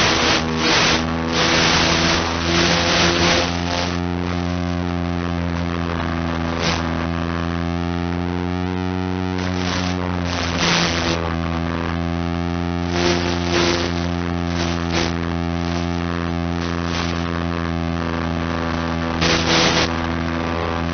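Steady electrical buzz with many overtones from an analog FPV video link's audio, broken by crackling bursts of static that are dense for the first few seconds and return briefly several times later; the static comes as the video signal breaks up.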